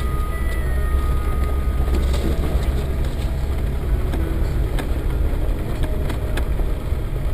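Land Rover Defender 110 driving slowly along a rough forest track, heard from inside the cab: a steady low engine and drivetrain rumble with scattered knocks and rattles.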